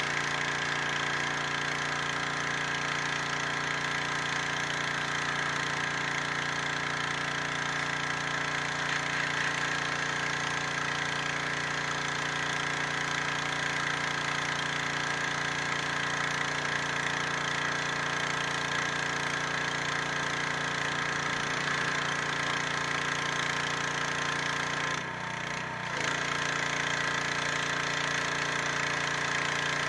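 High-pressure washer running steadily: a pump drone under the hiss of the water jet blasting the stone. The sound drops briefly for about a second near the end.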